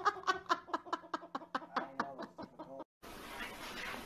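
A person laughing in rapid, even bursts that fade away before the end of the third second; after a cut, only a faint steady hiss.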